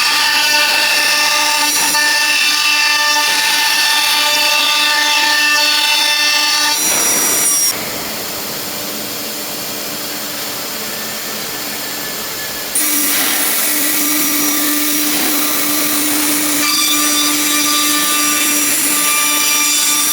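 CNC router spindle running under load, a steady whine of several tones over cutting noise. It drops suddenly to a quieter, noisier sound about eight seconds in and returns to the full whine about five seconds later.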